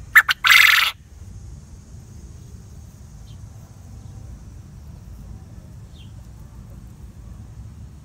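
Male quail calling once: two short sharp notes and then a longer, loud harsh note, within the first second. After that only a low steady background, with two faint short chirps.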